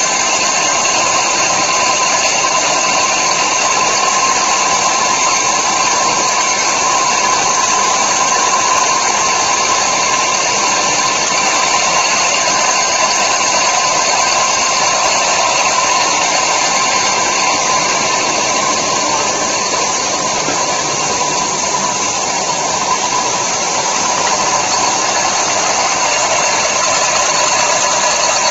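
Automatic can vacuum leak tester machine running: a steady mechanical noise with a constant high whine, unchanging throughout.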